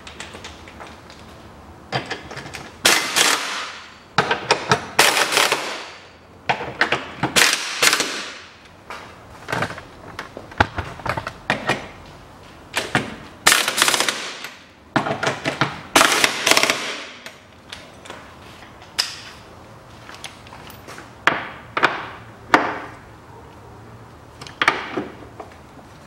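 Ratchet wrench clicking in a long string of short bursts, each about a second of rapid clicks, as bolts on the Mazda 6's front subframe and lower control arms are tightened.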